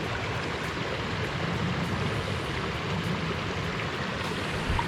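Steady rush of shallow river water flowing over a riffle.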